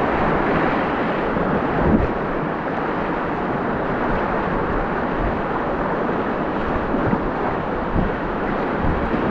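Steady rush of wind buffeting the microphone over water washing around a kayak riding a wave, with a few low thumps.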